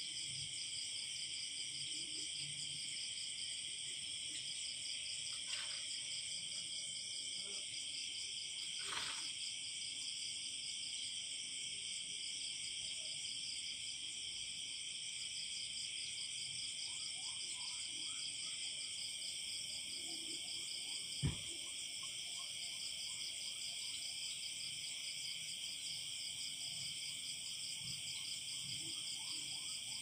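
Night chorus of crickets, a dense, steady, high-pitched trilling, with faint low calls underneath. A single sharp click comes about two-thirds of the way through.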